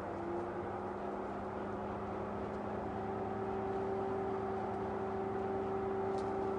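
A steady machine hum with a whine that sets in at the start and grows a little louder, a higher whine joining about three seconds in.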